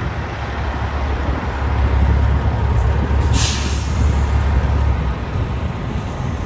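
Heavy truck's diesel engine rumbling close by, with one short burst of air-brake hiss about halfway through.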